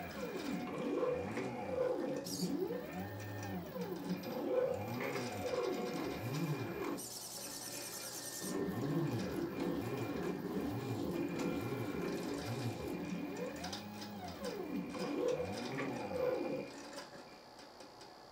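Stepper motors of a 3D-printed uStepper robot arm whining through a run of moves, each tone rising in pitch as a motor speeds up and falling as it slows, several overlapping. A hiss lasts a second or two about seven seconds in, and the motors go quiet near the end as the arm comes to rest.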